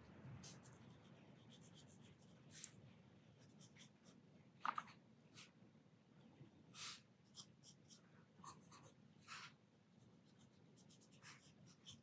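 Faint, scattered brush sounds: a watercolor brush stroking and dabbing on hot-pressed paper and in a paint mixing dish, about a dozen short soft scratches and swishes.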